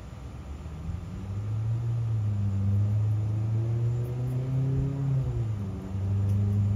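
An engine running nearby, a steady low hum that swells about a second in, its pitch climbing slowly and then dropping around five seconds in.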